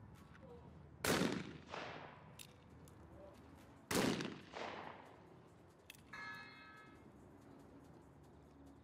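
Two 12-gauge over-and-under shotgun shots fired at clay targets in trap, about three seconds apart. Each loud crack is followed about half a second later by a weaker report. A short buzzing tone sounds about six seconds in.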